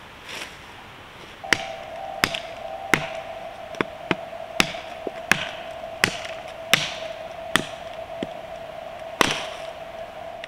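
A large knife chopping into a branch: about a dozen sharp strikes, roughly three every two seconds. A steady tone sounds beneath the strikes from shortly after the start.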